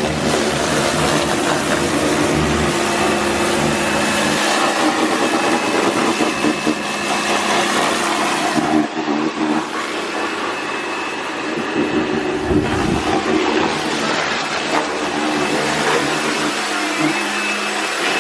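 A motor-driven machine running continuously with a loud, steady hiss and a faint motor hum underneath.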